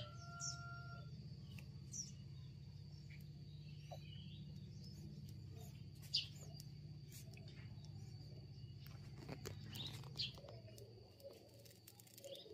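Faint outdoor ambience: scattered short, high bird chirps over a steady low hum that fades out about ten seconds in, with one sharp click midway.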